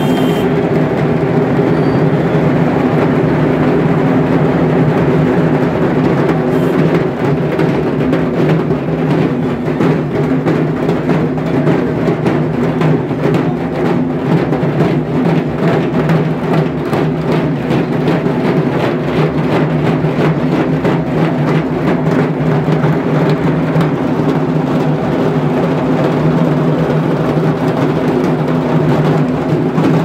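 About a hundred dhaks, the large Bengali barrel drums beaten with sticks, playing together in a loud, dense, continuous drumming.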